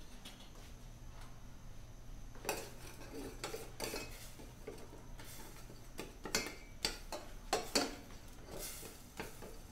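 Metal ladle stirring thin soup in a stainless steel saucepan, clinking and scraping against the pot's sides and bottom. The irregular knocks start about two and a half seconds in and keep coming until near the end.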